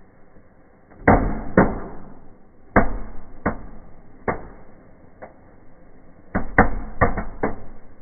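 Small indoor fireplace fireworks going off with a series of sharp bangs at irregular intervals. There are two about a second in, a few single ones through the middle, and a quick cluster of cracks near the end.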